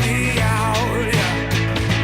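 Rock song playing as a soundtrack, a full band with a steady beat.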